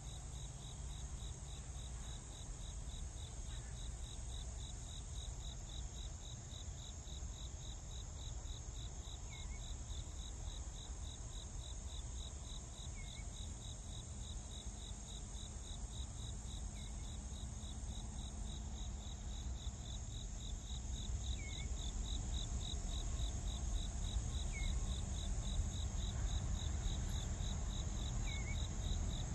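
Crickets chirping in a steady, evenly pulsed rhythm over a constant high insect drone. A low rumble underneath grows louder over the last several seconds.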